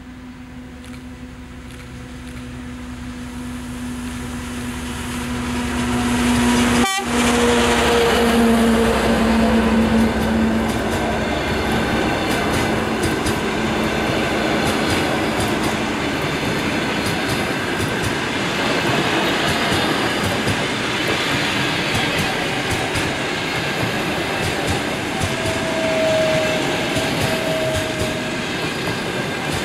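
TEP70BS diesel locomotive approaching with a passenger train. Its engine tone grows louder and drops in pitch as it passes about seven seconds in. Then the passenger coaches roll past with a steady rushing noise and wheels clicking over the rails.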